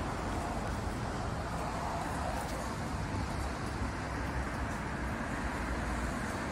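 Steady low rumble and hiss of background noise, with no distinct event.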